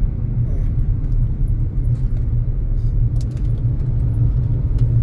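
Steady low rumble of a car driving at highway speed, engine and tyre road noise heard from inside the moving car.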